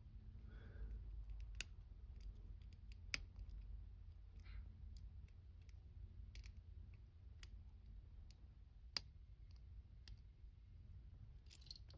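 Faint, irregular metallic clicks of a lock pick and tension wrench working the pins of a small challenge lock held in the hand, a few sharper clicks standing out over a low steady hum.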